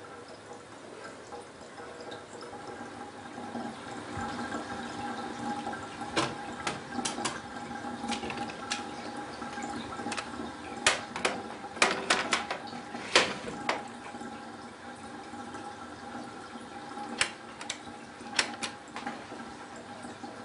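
Water running steadily from a tap, broken by sharp clicks and knocks, several grouped around the middle and a few more later.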